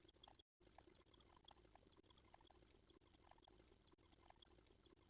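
Near silence, with only a faint hiss.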